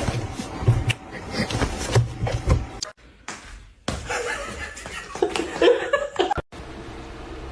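A person laughing in short bursts, then, after sudden cuts, a steady low hiss near the end.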